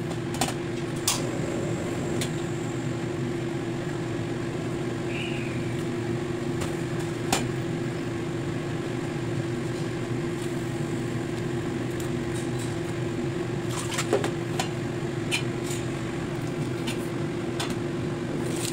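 Steady kitchen hum with a constant low tone, with a few sharp clicks scattered through it, the loudest about fourteen seconds in.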